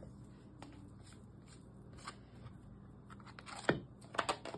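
Dough scraper stirring shaggy sourdough dough in a bowl, just mixing flour, water and starter together: soft scraping with scattered light knocks against the bowl, one louder knock about three-quarters of the way in and a quick cluster of small knocks near the end. A faint steady low hum lies underneath.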